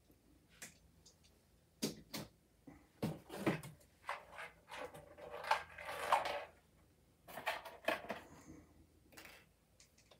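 Handling noise of model trains and packaging: scattered clicks and knocks of small plastic train parts and a cardboard box being picked up and set down, with a longer rustle of cardboard about five to six and a half seconds in.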